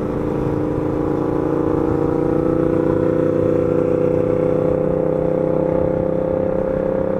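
Motorcycle engine heard from on board at highway speed, its pitch rising slowly as it gathers speed, over a steady rush of wind and road noise.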